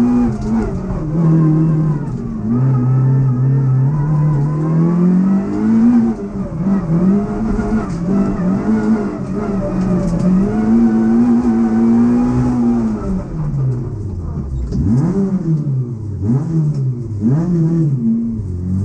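Citroën Saxo rally car's four-cylinder engine, heard from inside the stripped cabin, revving up and dropping back through gear changes as it is driven hard. Near the end the revs swing up and down several times in quick succession.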